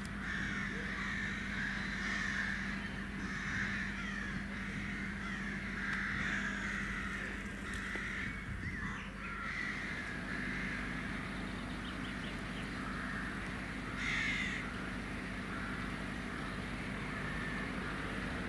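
Birds singing and calling in the trees, with crows cawing; one louder caw about fourteen seconds in. A low steady hum runs underneath.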